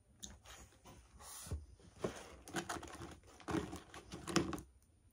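Paper food wrapper being handled: irregular rustling and crinkling with small clicks, densest and loudest in the last couple of seconds.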